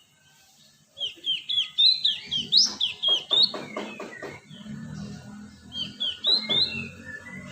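Cinereous tit (gelatik batu) calling: after about a second of quiet, a quick run of short, sharply down-slurred high chirps, then a fast rattling chatter of rapid notes, then another run of chirps near the end.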